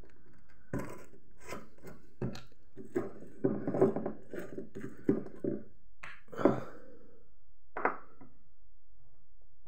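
Small glass bottles handled on a wooden table: metal screw caps are twisted off with a run of clicks and scrapes. Several sharp knocks follow, the loudest about two thirds of the way in.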